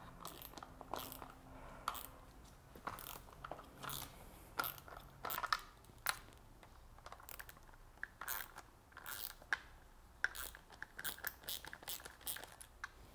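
A hand Torx driver backing screws out of a Porsche 981 Cayman S's plastic air filter housing. It makes irregular clicks and ticks of tool and plastic, coming thicker in the second half.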